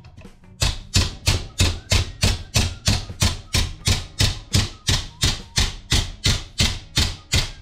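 Steady hammer blows on a steel piece clamped in a bench vise, about three a second, folding the metal over. The blows start about half a second in.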